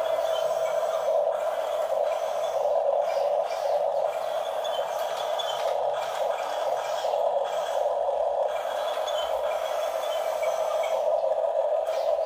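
Electric drive motors and gearboxes of radio-controlled toy construction vehicles whining steadily as a tracked toy bulldozer drives and pushes with its blade.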